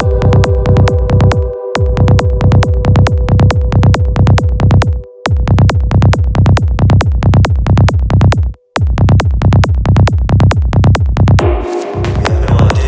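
Progressive trance track playing: a fast, steady drum-machine kick and bass pulse under held synth tones. The beat drops out briefly three times, about 2, 5 and 8.5 seconds in. Near the end a brighter, hissier synth layer comes in.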